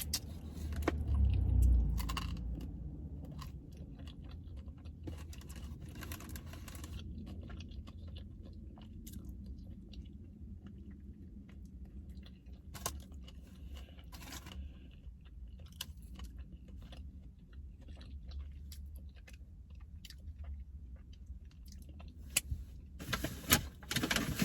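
Close-up chewing and crunching of fried chicken wings, with scattered small wet clicks of eating. A heavy low thump comes about a second and a half in, and a loud rustle near the end.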